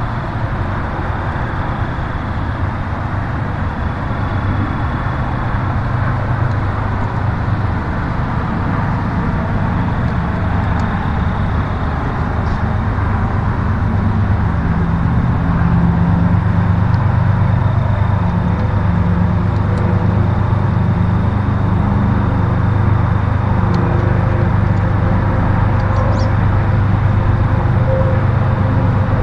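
Steady low motor rumble, growing a little louder about halfway through.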